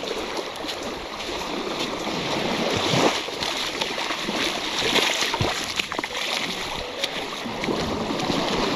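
Shallow seawater sloshing and splashing, with a few sharper splashes scattered through.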